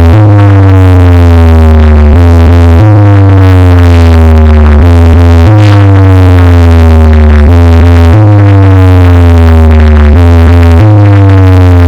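Loud electronic dance music: a heavy, steady bass under a falling synthesizer line that repeats every few seconds.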